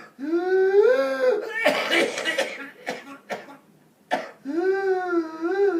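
A whooping cough (pertussis) fit. A long, high-pitched whooping in-breath rises in pitch at the start, a quick run of harsh coughs follows about a second and a half in, and a second whoop wavers up and down from near the end. The whoop is the forced gasp for air after a coughing spasm, the sign of pertussis.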